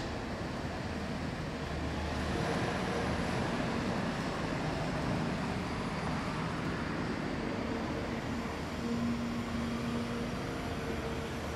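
Caterpillar 340F long-reach excavator's diesel engine running steadily while it works, with a faint hum of tones that comes and goes over it.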